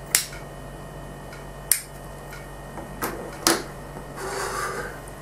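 A few short sharp mouth clicks and lip noises, then a soft breath out about four seconds in, from a man drawing on a cigarette.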